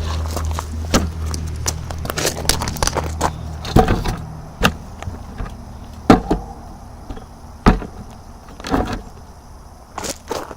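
Scattered knocks and clatters of a piece of wood and a BMX bike being handled and set in place, over a low steady hum that fades out about four seconds in.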